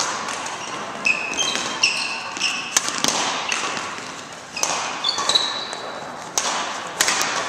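Badminton rally in an echoing hall: sharp racket strikes on the shuttlecock about once a second, mixed with footfalls and short high squeaks of court shoes on the floor.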